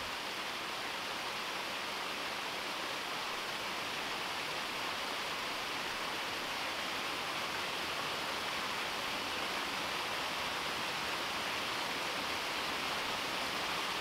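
Small waterfall splashing over rocks into a pond: a steady, even rush of falling water.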